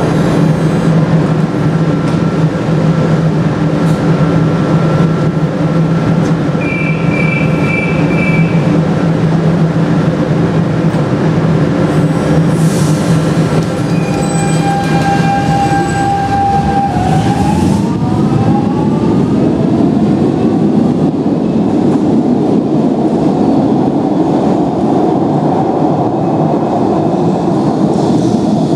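Lisbon Metro train standing at the platform with its equipment humming steadily, then pulling out: a short two-tone signal sounds about seven seconds in, then more signal tones. From about seventeen seconds in, a rising whine from the traction motors gives way to a broad rumble of wheels on track as the train accelerates away.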